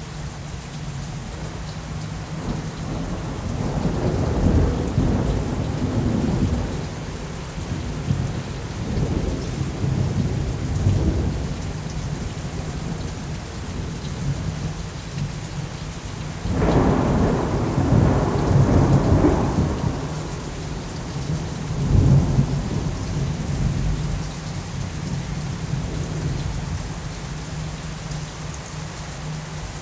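Thunderstorm: steady rain with rolling thunder. Rumbles build a few seconds in, and a sudden, louder clap about halfway through rolls on for several seconds, with another rumble soon after.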